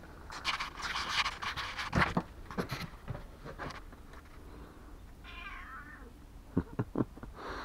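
Domestic cat meowing twice: a long, rough meow in the first couple of seconds, then a shorter one past the middle, with a few light taps in between and near the end. The meows are taken for the cat asking to eat.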